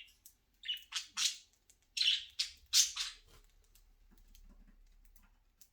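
Pet budgerigars giving several short, high calls in quick succession over the first three seconds.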